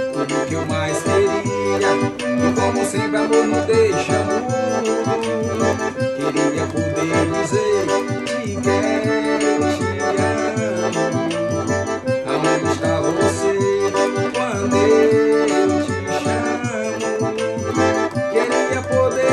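Accordion playing an instrumental passage: a melody of held, reedy notes over a steady rhythmic bass.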